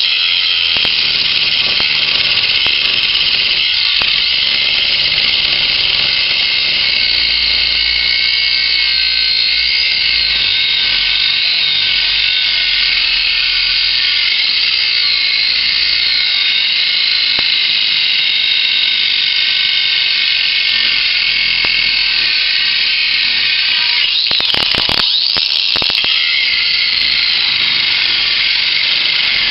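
Ryobi One+ 18-volt cordless angle grinder running with a high-pitched whine whose pitch wavers as its cut-off wheel cuts into a steel screw, powered by an older, weaker battery. About 25 s in the motor briefly slows and spins back up.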